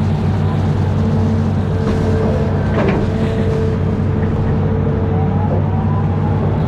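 Amphibious excavator's diesel engine running steadily, with a short knock about three seconds in.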